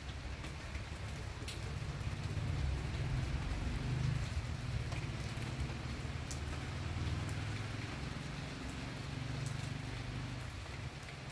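Torrential rain falling, with scattered sharp drip and splash ticks. Under it a low rumble swells about two seconds in and fades near the end.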